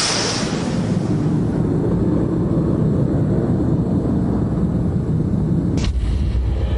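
Documentary title-sequence sound effects: a whoosh fading out into a steady, dense low rumble. A sharp hit comes about six seconds in, followed by a deep boom.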